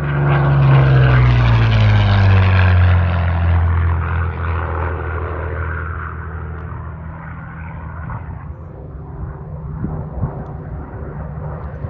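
P-51 Mustang propeller fighter flying past: its engine drone is loudest about a second or two in, drops in pitch as it passes, then fades away.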